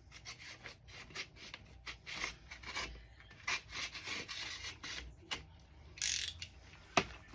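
A paper envelope being handled and opened: irregular rustling and scraping strokes of paper, with one louder stroke about six seconds in.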